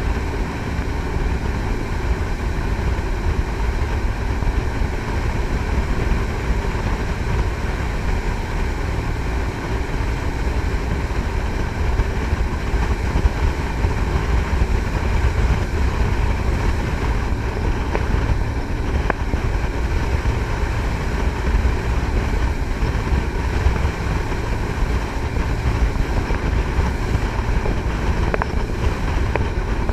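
Triple-engine jet boat under way: the steady drone of its three Cummins marine diesels driving Hamilton water-jet pumps, mixed with rushing water and wind on the microphone.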